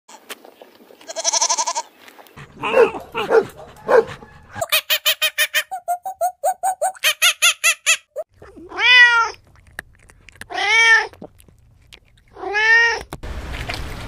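A series of animal calls: a goat bleating with a wavering tone, a fast run of squeaky pulses, then three rising-and-falling monkey cries about two seconds apart. Ducks start quacking near the end.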